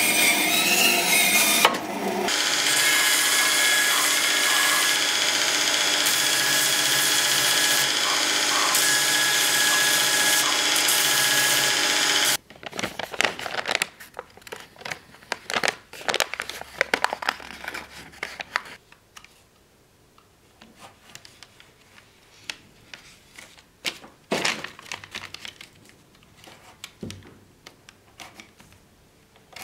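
A bandsaw cutting a wooden handle blank, then a power tool running steadily until it cuts off abruptly about twelve seconds in. After that come quieter, irregular rustles and scrapes of handwork on paper.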